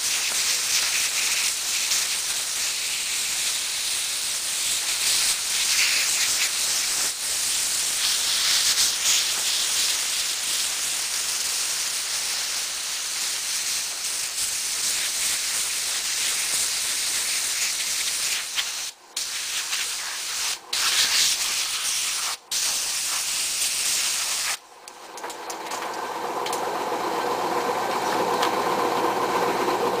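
Air blower jet hissing steadily as it blows dust out of a hair dryer's motor and fan, cut off briefly three times near the end. The hissing then stops, and a motor starts humming and rises in level over the last few seconds.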